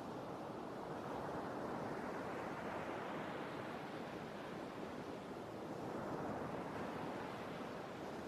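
Sea surf washing on the shore, a continuous rush of waves that swells and eases slowly.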